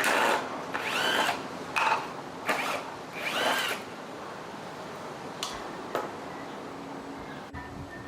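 A small power tool run in several short bursts, its pitch rising and falling with each burst as the motor spins up and winds down, followed by a quieter steady hum.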